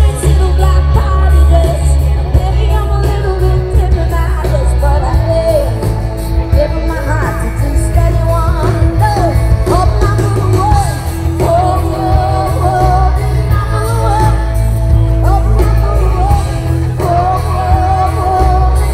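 Live pop-rock band playing loud, with a woman singing lead over drums, bass, guitars and keyboard; the bass is heavy.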